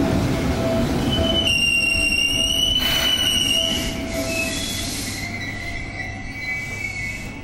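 Seibu 2000 series electric commuter train braking to a stop at a platform: a rumble from the wheels on the rails, with a high squeal about a second in and a lower squeal near the end, the whole sound fading as the train slows.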